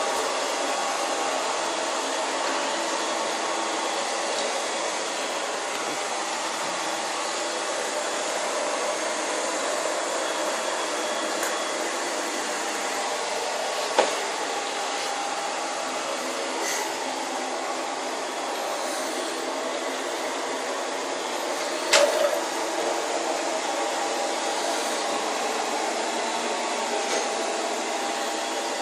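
Vacuum cleaner running steadily, with two short knocks, one about halfway through and another some eight seconds later.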